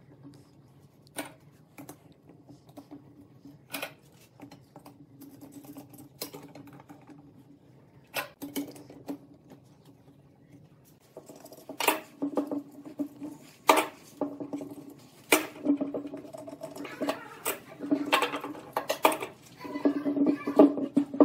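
Metal F-style bar clamps clacking and rattling as they are fitted around a glued wooden block and their handles tightened: sharp separate knocks at first, then a busier run of clatter in the second half.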